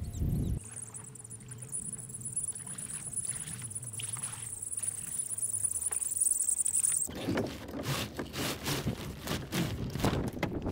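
A steady high-pitched whine over a faint low hum. About seven seconds in, a small sailboat's sail starts flapping and rustling in the wind.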